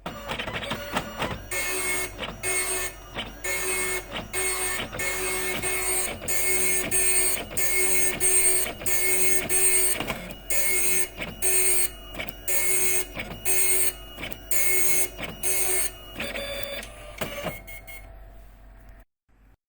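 Epson dot matrix printer printing: a fast run of loud print-head bursts, a little under two a second, each a harsh high buzz separated by brief gaps. About three-quarters of the way in the bursts give way to a softer whirring for a couple of seconds, then the printer falls quiet shortly before the end.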